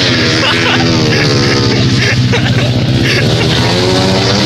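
Racing motorcycle engine running loud and steady during warm-up, its revs rising and falling.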